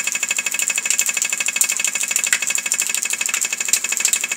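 Metal water pipe and valve chattering with a fast, steady rattle and a faint hum beneath, the kind of vibration set up by water flowing through the fitting.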